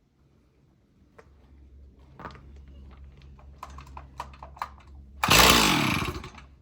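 Stihl 026 chainsaw being pull-started cold on full choke: a few light clicks of handling, then one loud pull about five seconds in, lasting about a second and fading away without the saw running on.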